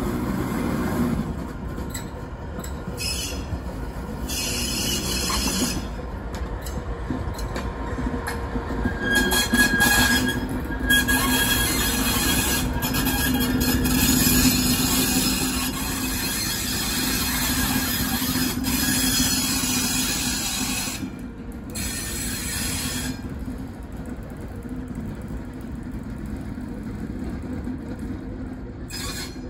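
DR class 232 diesel locomotive hauling tank wagons slowly past, its diesel engine humming steadily under the rumble of the wheels. High-pitched wheel squeal comes and goes as the wagons grind round the curved track, loudest in the middle as the locomotive passes close by.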